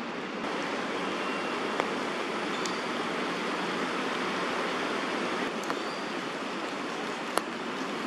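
Steady hiss of rain falling through tree foliage, with a few sharp single drip taps, the loudest near the end.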